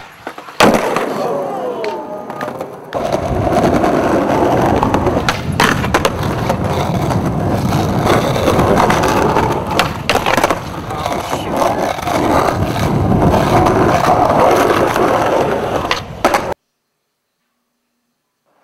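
Skateboard sounds: wheels rolling loudly over concrete, broken by several sharp knocks of the board popping and landing. The sound cuts off abruptly near the end.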